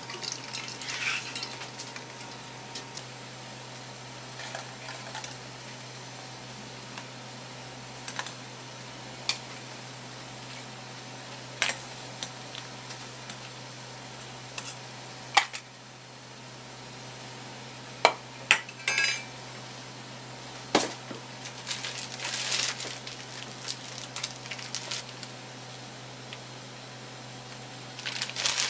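Sporadic sharp clinks and taps of kitchen utensils against a metal pot and bowl, over a low steady hum.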